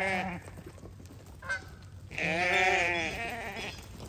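Sheep bleating: the end of one bleat at the start, then a long, wavering bleat from about two seconds in.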